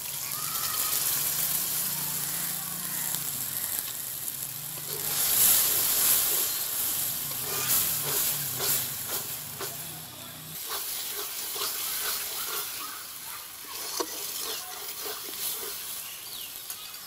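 Yogurt and spice paste sizzling in hot oil in a metal kadai, the sizzle swelling about five seconds in. A metal spatula then stirs and scrapes the masala against the pan in a run of short clicks and scrapes.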